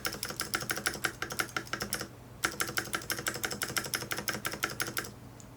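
Fast typing on a Varmilo Pro Panda keyboard with clicky Cherry MX Blue switches, freshly lubed from the top with a brush: a little of the rattle is gone, though the owner feels it needed a bit more lube. The typing pauses briefly about two seconds in, resumes, and stops near the end.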